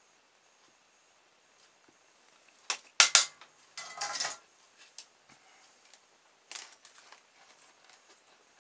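Small hard parts and tools being handled on a workbench: a few sharp clicks and clatter about three seconds in, then a short rustle and scattered lighter knocks.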